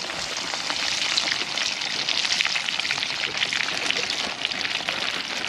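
Hot oil sizzling and crackling steadily as food deep-fries.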